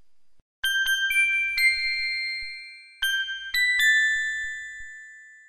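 Bell-like chime notes struck in two short runs, four quick notes and then three more after a brief pause, each ringing on and slowly fading away.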